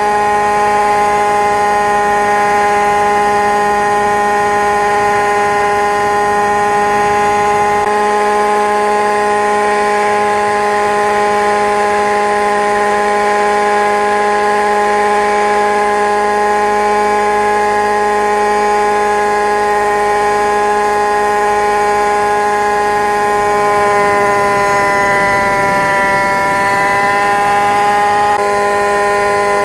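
Steady, high buzzing whine of a radio-controlled model helicopter's motor, heard from on board the helicopter carrying the camera. Its pitch dips slightly and recovers near the end.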